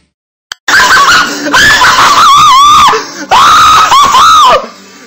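A person screaming loudly: after a brief silence, several long wavering screams with short breaks between them.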